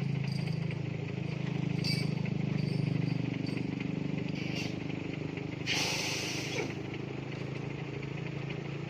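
Heavy truck's diesel engine running at low revs, a steady low hum, with a burst of hissing lasting about a second near six seconds in.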